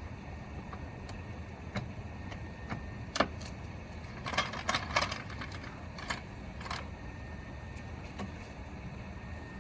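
Scattered metallic clicks and knocks of tools and wheel hardware being handled during a roadside flat-tire change, busiest about four to five seconds in, over a steady low rumble.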